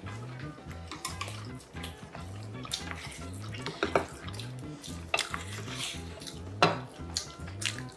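A spoon and chopsticks clinking and scraping against ceramic bowls and plates as rice and stir-fry are mixed and scooped, with a few sharp clinks, the loudest about two-thirds of the way through. Soft background music with a steady bass beat runs underneath.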